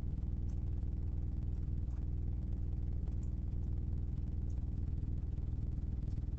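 Steady low hum, with a few faint ticks now and then.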